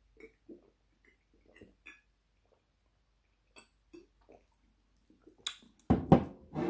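Quiet gulping while drinking juice from a glass bottle. About five and a half seconds in, a sharp clink as the glass bottle meets the wooden table, then a loud burp.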